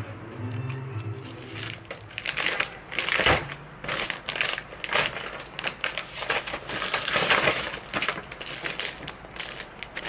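Crinkling and rustling in dense, irregular bursts, like packaging being crumpled or handled.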